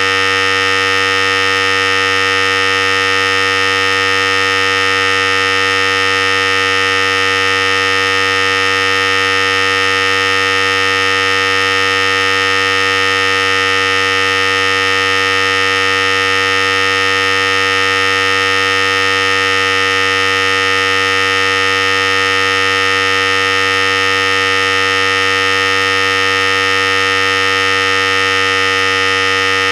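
Philips Series 5000 hair clipper running continuously, a steady, even buzz that does not change.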